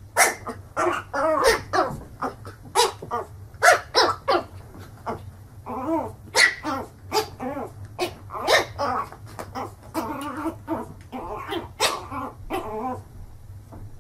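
Small puppy yapping at its own reflection in a mirror: quick runs of short barks, stopping about a second before the end.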